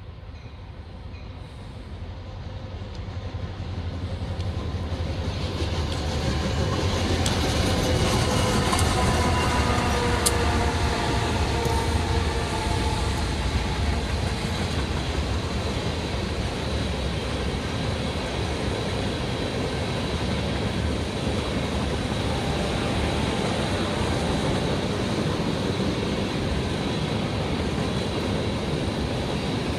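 Freight train with several diesel locomotives approaching and passing close by: the engines grow louder over the first several seconds, and their pitch drops as they go by. Then comes the steady noise of a long string of tank cars' wheels rolling over the rails.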